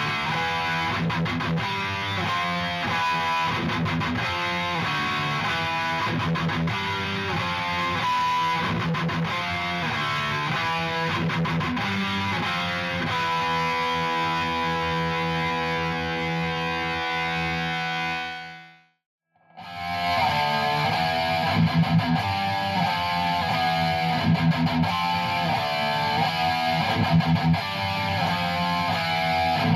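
Distorted electric guitar riffing through a Hughes & Kettner Tubemeister 18 valve amp head. A chord is held and rings out about two-thirds of the way through. The sound then cuts out briefly and the riffing starts again.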